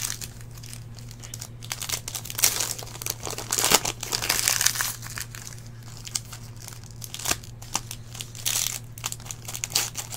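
Trading card pack wrapper crinkling and tearing as it is opened by hand, in several short bursts.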